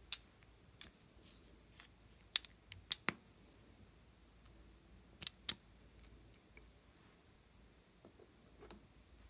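Small glitter cosmetic bottles and their caps clicking and tapping as they are handled, opened and dabbed onto slime in a glass dish: a few sharp, separate clicks, the loudest clustered around three seconds in and again past five seconds.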